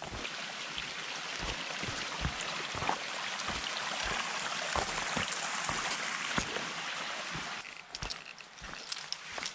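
Steady rush of a stream with footsteps thudding about twice a second; the water sound cuts off abruptly near the end, leaving the footsteps.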